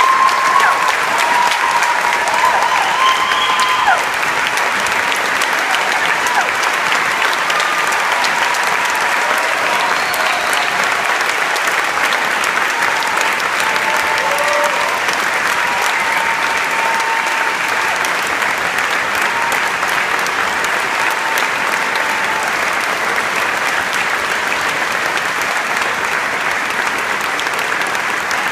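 A large audience applauding and cheering, with scattered calls and whoops above the clapping. It is loudest for the first four seconds or so, then goes on steady and sustained.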